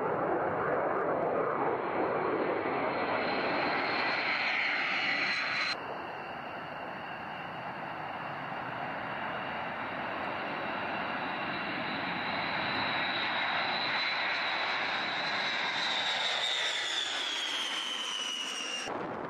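Eight TF33 turbofan engines of a B-52H Stratofortress at takeoff thrust as it lifts off: a loud jet roar with a high steady whine. The sound cuts abruptly about six seconds in and carries on a little quieter. Near the end the whine falls in pitch as the bomber passes.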